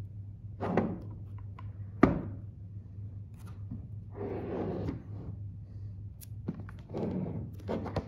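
Cardboard packaging being handled on a wooden desk: several short scrapes of a cardboard sleeve sliding and rubbing over the box, and one sharp thunk of the box against the desk about two seconds in, the loudest sound. A faint steady low hum lies underneath.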